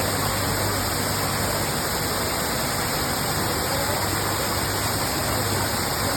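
Steady rush of running or spraying water, even and unbroken, with a faint low hum beneath it.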